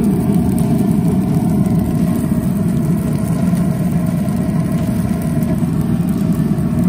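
Traeger pellet grill's fan running with the lid open: a steady low hum that never varies in level.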